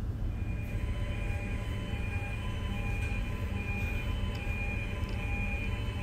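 Alarm beeping over and over, a little more than once a second, starting about a third of a second in, over the steady rumble of engine-room machinery. It is the incinerator's misfire alarm, set off on test by unplugging the flame sensor.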